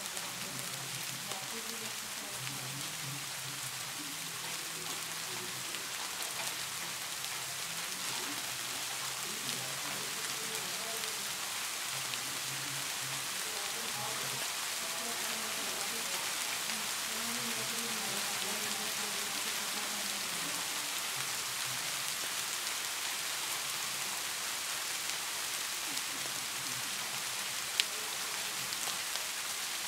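A steady, even hiss like rain that grows slightly louder, with faint distant voices underneath and a single sharp click near the end.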